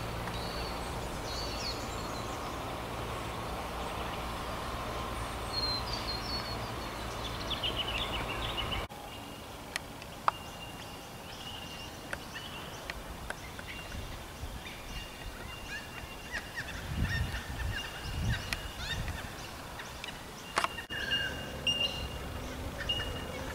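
Wild birds calling and chirping over a low rumble of wind on the microphone; the background changes abruptly twice where the recording is cut.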